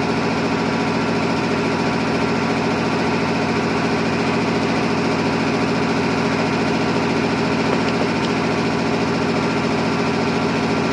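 A motor running steadily at an even speed, a continuous engine-like hum with no change in pitch.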